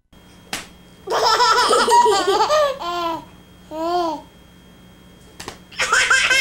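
Toddlers laughing: a long burst of laughter, then two short separate giggles, then another burst of laughter near the end.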